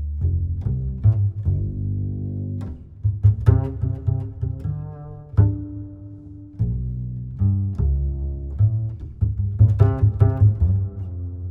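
Instrumental background music with a deep bass line and short plucked notes.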